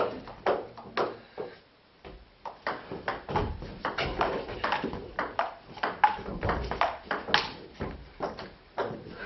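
Table tennis ball clicking off the bats and the table. A few hits come, then a short pause, then from about two seconds in a long, fast rally of quick clicks.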